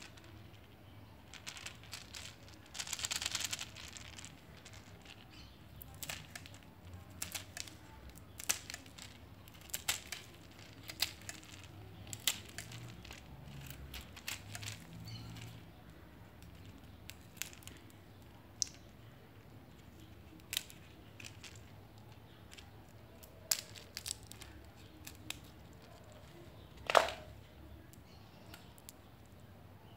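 Pruning shears cutting open dry Enterolobium gummiferum seed pods, with irregular sharp clicks and crackles as the pods split. There is rustling of pods and plastic sheeting, a longer crinkling stretch about three seconds in, and one loud crack near the end.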